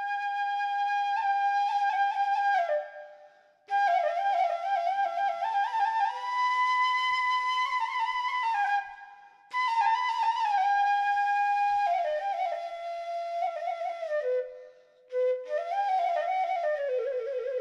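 Solo flute playing a slow, ornamented melody in long held phrases, with short breaks between phrases.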